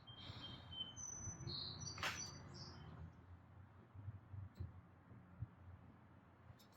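Faint chirping of small birds, a string of short high notes in the first few seconds, with a single sharp click about two seconds in.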